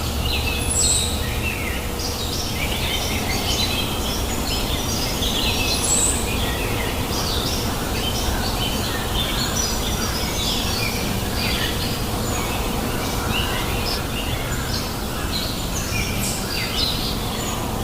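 Many small birds chirping and calling at once, dense and continuous, over the steady rushing of a river.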